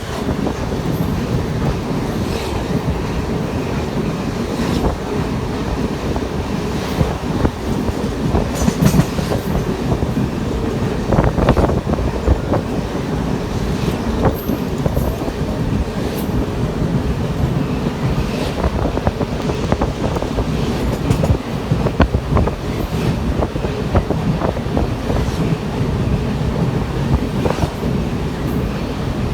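Mumbai suburban local train (an electric multiple unit) running at speed: a steady rumble with wheels clacking over rail joints at irregular intervals.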